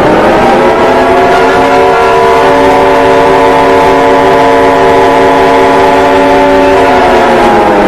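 Loud, distorted emergency-alert siren tone: several pitches sounding together glide up at the start, hold steady, and slide down about seven seconds in, over a harsh hiss.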